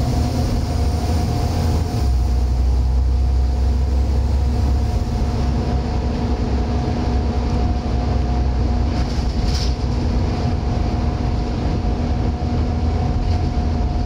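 Volvo B7TL double-decker bus on the move, heard from inside on the upper deck: a low engine drone under a steady, hoover-like whine, with a couple of brief rattles about nine to ten seconds in.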